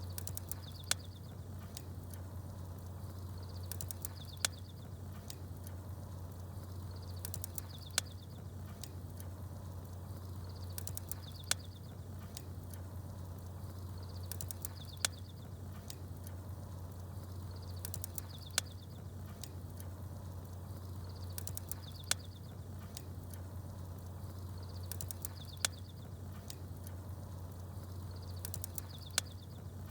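Campfire burning with a sharp crackle about every three and a half seconds over a steady low rumble, while small birds chirp faintly at the same spacing.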